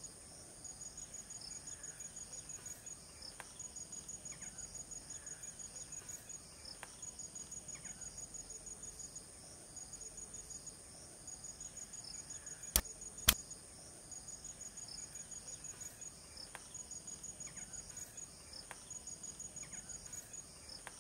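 Insects chirping in rapid pulsed trills, each lasting about two seconds with short gaps, over a steady high whine. Two sharp clicks, about half a second apart, stand out a little past the middle.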